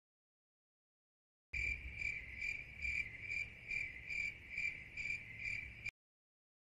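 Cricket chirping: a high, even trill pulsing about twice a second. It starts about a second and a half in and cuts off abruptly near the end.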